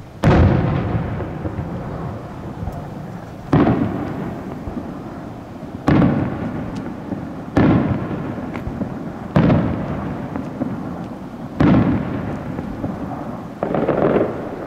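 Aerial firework shells bursting overhead, seven loud booms a couple of seconds apart, each followed by a long rumbling tail as it fades.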